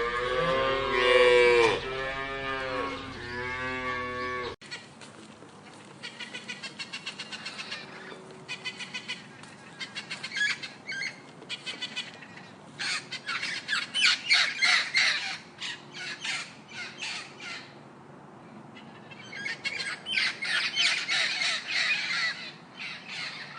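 A cow mooing in long pitched calls. After an abrupt cut, a bird's harsh squawks follow, many short calls in quick runs of several a second, with brief pauses between the runs.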